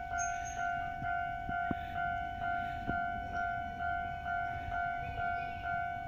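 Japanese railway level-crossing warning bell ringing: an electronic two-tone chime struck steadily about twice a second, sounding because a train is approaching. A faint low rumble runs underneath.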